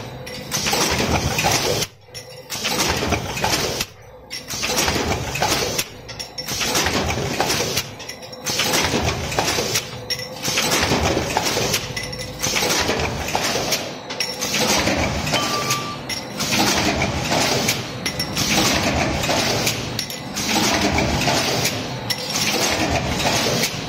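Automated production line machinery running: loud metallic clattering and clinking that comes in cycles of about two seconds, less regular later on, with a faint steady tone under the first half.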